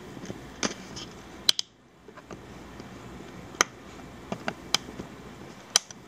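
Small flat-bladed screwdriver tapping and prying at the plastic housing of a Delsey TSA luggage lock, working its snap-in tabs loose to open the back: about six sharp plastic clicks, spaced irregularly.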